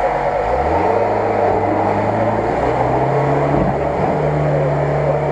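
UAZ-469 off-roader's engine pulling through deep mud ruts. The revs rise during the first second and then hold steady, dip briefly about midway, and then pick up again at a steady pitch.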